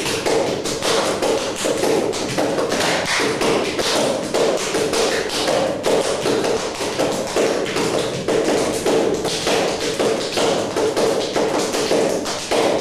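Rapid, irregular percussive tapping and thumping, several strikes a second, over a steady droning tone.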